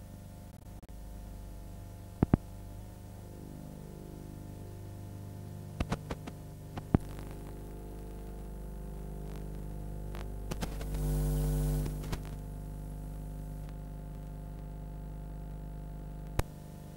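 Steady electrical mains hum with a few sharp clicks and pops, and a louder burst of noise lasting about a second roughly eleven seconds in.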